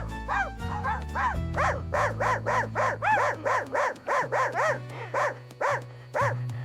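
A dog barking over and over, about two to three barks a second, over background music.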